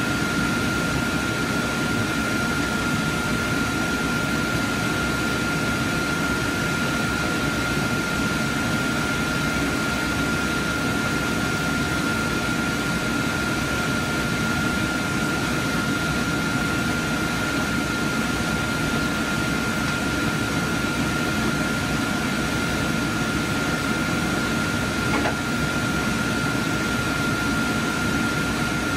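Steady whir of cooling and ventilation fans in an IMAX 70mm film projection booth, with a constant high whine over it and one small click near the end.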